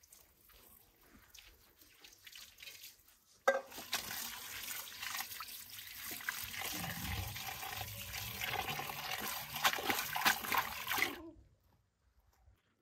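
Water running steadily, starting suddenly about three and a half seconds in and cutting off abruptly near the end. A few faint small clicks come before it.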